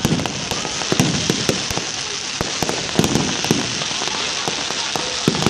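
Fireworks display: a steady hissing crackle like rain, broken by sharp bangs of bursting shells about twice a second, some with a low boom.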